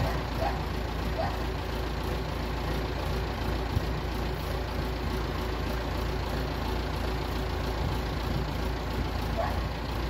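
Farm tractor's diesel engine running steadily while its hydraulics raise a rear-mounted hoist carrying a heavy big-bag sack.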